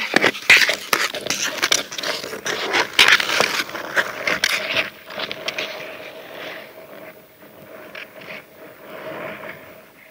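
Ice skate blades scraping and cutting across frozen pond ice, loud and close with sharp crackling for about the first five seconds, then fading to a fainter scraping as the skating moves off.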